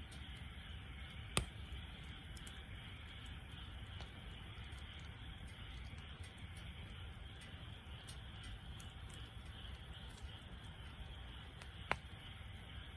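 Wood fire burning in a Snow Peak fire pit: a low steady hiss with faint crackling and two sharp pops, one about a second in and one near the end.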